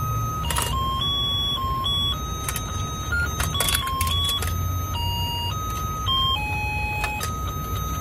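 Battery-operated toy fishing game shaped like a hen, playing a simple beeping electronic tune of single notes over the steady low hum of the motor that turns its fish pond, with a few sharp plastic clicks.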